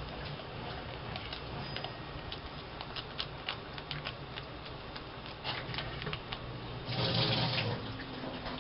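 Washing machine pumping its drain water out into a laundry tub: a steady low motor hum with water noise, which makes a big racket. Light crackles from a plastic sauce pouch being squeezed run over it, and a louder rush of noise comes about seven seconds in.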